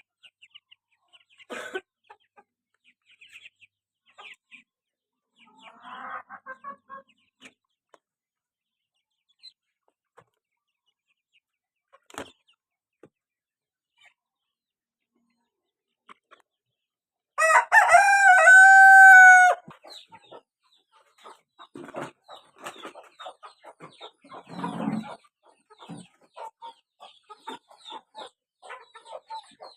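A rooster crows once, a loud crow of about two seconds a little past the middle, with scattered soft clucking from chickens before and after it.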